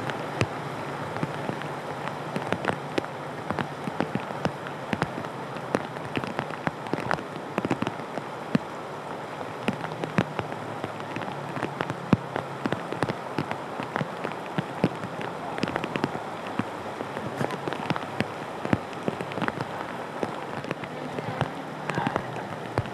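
Floodwater rushing down a street: a steady wash of water noise dotted with many sharp splashes and patters.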